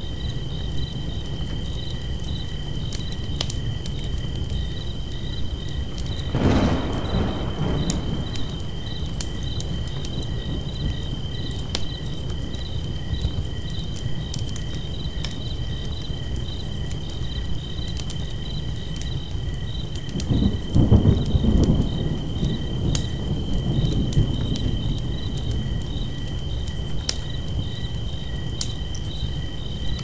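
Campfire crackling with scattered sharp pops over a steady low rumble, and insects chirping in a steady high trill with evenly pulsing chirps. Two louder surges of crackling come about six and twenty-one seconds in.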